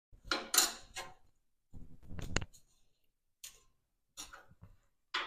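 Sheet metal and a bending brake clanking and clicking as the freshly bent 14-gauge panel is worked and handled. A quick cluster of clatters comes first, then a louder knock with a brief metallic ring about two seconds in, then a few lighter knocks.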